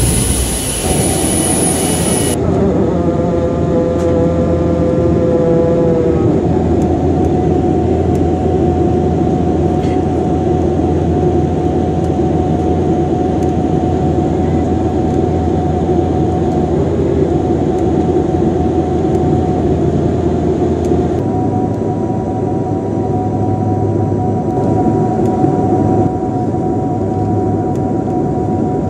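A jet airliner's roar on the runway cuts about two seconds in to the steady drone of a Bombardier Dash 8 turboprop's engines and propellers in flight, with constant propeller tones. A short rising whine sounds about three to six seconds in.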